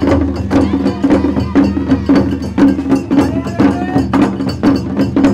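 Festival ohayashi music played live on a Japanese dashi float: taiko drums beaten in a steady, quick rhythm of about three strikes a second, with a melody line sounding over them.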